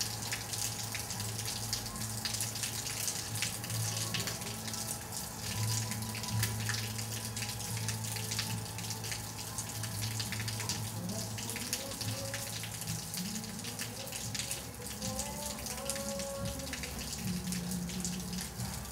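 Steady rain falling: a dense hiss of pattering drops over a low, steady hum.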